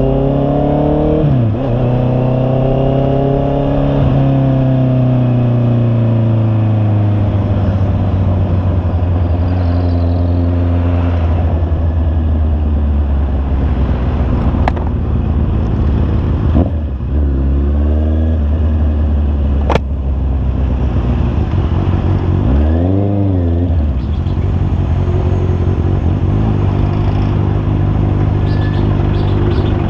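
Honda CB650R's inline-four engine under way, its pitch climbing and dropping as it pulls through the gears, with a quick blip up and back down about two-thirds of the way through. Two sharp clicks stand out in the middle.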